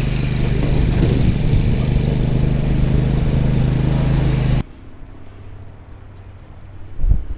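Riding lawn mower engine running steadily close by, a loud even drone. It cuts off suddenly about four and a half seconds in, leaving much quieter sound with a couple of low thumps near the end.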